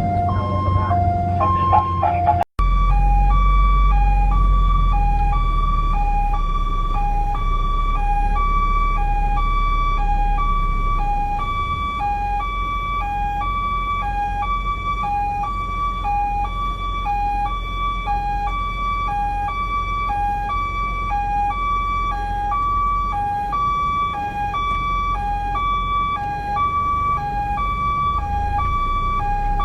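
Ambulance siren sounding a two-tone hi-lo, alternating between a higher and a lower note about once a second, over a steady low engine and road rumble. About two and a half seconds in, the sound drops out for an instant; before that the siren is on a quicker pattern.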